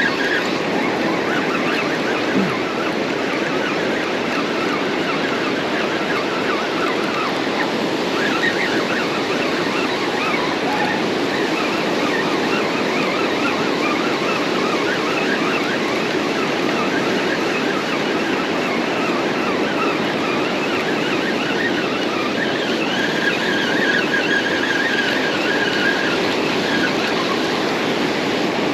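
Ocean surf breaking and washing up over flat wet sand, a steady rushing hiss with no pauses, getting a little sharper for a few seconds near the end.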